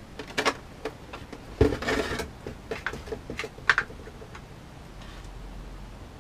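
Irregular clicks, knocks and a short scuffle from a plastic stormtrooper helmet and tools being handled and set down on a workbench. The sounds die away after about four seconds.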